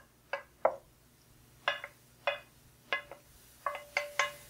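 Wooden spoon knocking and scraping against a stainless-steel skillet as sautéed zucchini and onion is pushed out of the pan into a glass bowl. About nine sharp knocks at uneven intervals, some ringing briefly.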